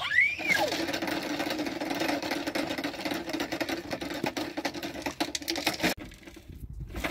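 Scouring pad scrubbing a steel dish in a metal basin: a continuous rasping with many small clicks, opening with a short squeak that rises and falls in pitch. It stops about six seconds in.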